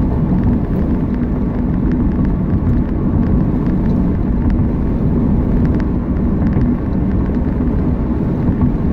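Steady low rumble of road noise and engine hum inside a moving car's cabin.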